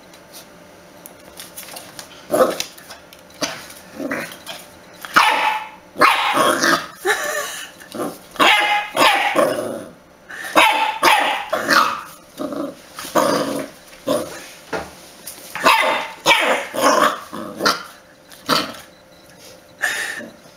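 Dachshund puppy barking repeatedly in short bursts, starting about two seconds in.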